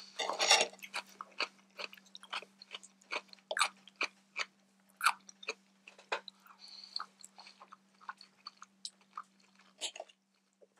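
Close-miked chewing of salad and fish, with irregular wet mouth clicks and crunches. A knife and fork clink and scrape against a glass plate in the first second and again near the end.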